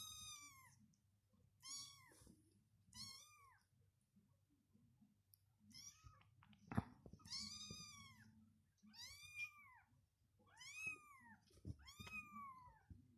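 Twenty-day-old Kurilian bobtail kittens mewing, a string of about eight short high-pitched mews, each rising and falling in pitch, every second or two. A single sharp click about seven seconds in.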